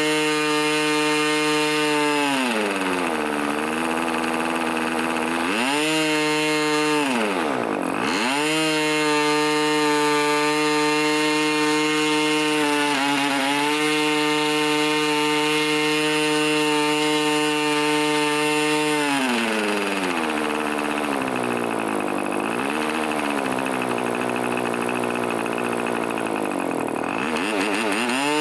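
Irvine 20 model diesel engine, unsilenced, driving a 10x6 propeller on a test stand. It runs at high speed, around 9,000 rpm, and is throttled down and back up several times: the pitch falls about two seconds in, rises again near six seconds, dips sharply around eight seconds, then drops to a low idle for much of the latter part before climbing back near the end.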